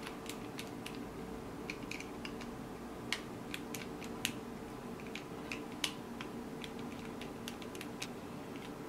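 Scattered small, sharp clicks and ticks, a few louder than the rest, as a parallel-wound Kanthal microcoil and its wire legs are fitted into the posts of a rebuildable atomizer deck, over a faint steady hum.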